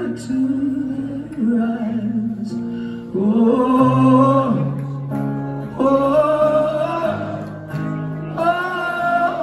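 A man singing long held notes with vibrato over his own acoustic guitar, in a live solo performance.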